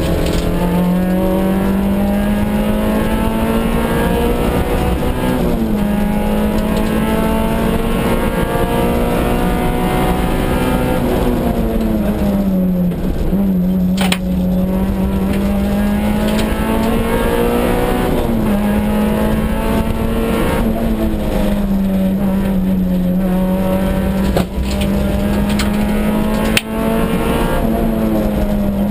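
Engine of a Peugeot 106 Group N rally car heard from inside the cabin, driven hard at high revs, with the revs falling and climbing again several times as the car shifts gear and brakes for corners. A few sharp knocks sound over it, about halfway through and twice near the end.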